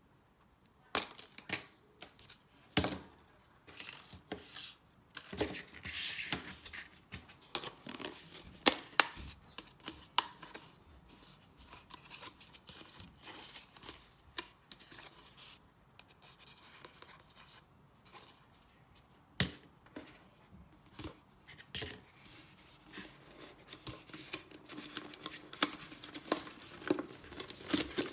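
Thin plastic yogurt cup being broken and torn apart by hand along cuts melted with a soldering iron: irregular crackles, snaps and tearing, with the sharpest snaps in the first ten seconds and more crackling near the end.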